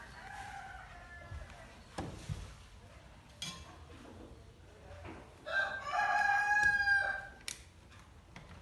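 A rooster crowing: a fainter crow at the start and a loud, long crow about five and a half seconds in. A few light knocks fall between the crows.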